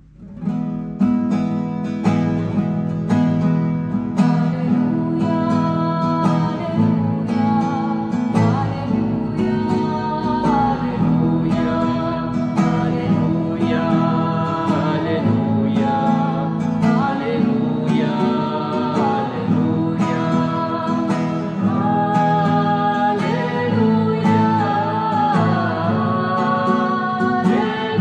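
Acoustic guitar strummed in a steady rhythm, starting about a second in, with a voice singing along from about a third of the way through: the sung acclamation before the Gospel at Mass.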